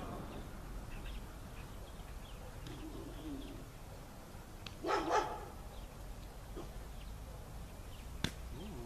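A dog barking twice in quick succession about five seconds in, over faint bird chirps, with one sharp click near the end.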